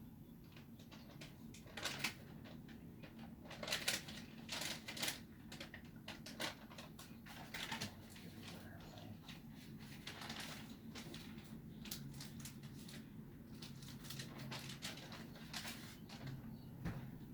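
Scattered raindrops ticking and pattering irregularly on a hard surface close by, the first drops of an arriving thunderstorm squall, with the loudest clusters of ticks about two and four seconds in.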